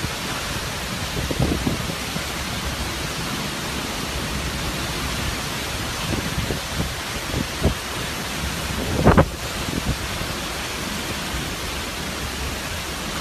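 Hurricane wind and heavy rain: a steady rushing hiss, with a few low rumbling surges, the loudest about nine seconds in.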